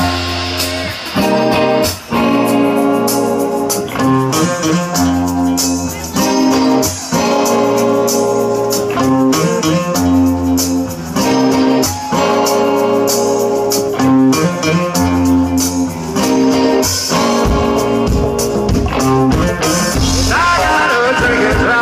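Live rock band playing: electric guitar and drums over sustained low bass notes, with a voice coming in near the end.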